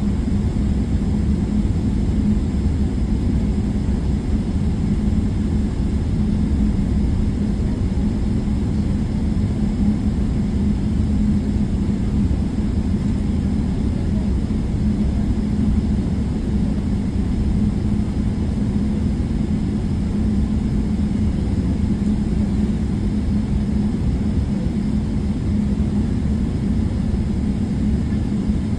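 Steady low rumble of a jet airliner heard from inside the passenger cabin, engines running with a constant hum and no change in pitch or loudness.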